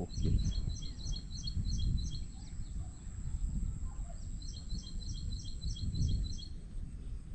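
A bird calling a quick series of short, high chirps, about four a second, in two runs a couple of seconds apart, over a fluctuating low rumble of outdoor noise.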